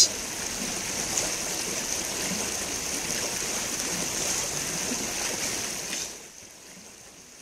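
Creek water rushing, a steady hiss that drops to a fainter level about six seconds in.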